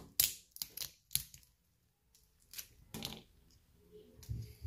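Boiled crayfish shell cracking and crunching as it is broken apart by hand: a string of short, sharp crackles and clicks at irregular intervals.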